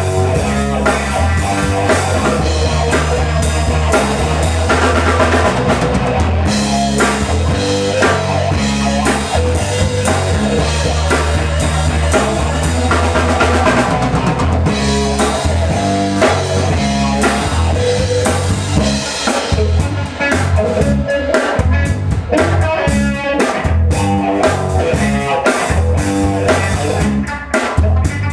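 Live instrumental funk-rock band playing: electric guitar over bass and a drum kit keeping a steady groove.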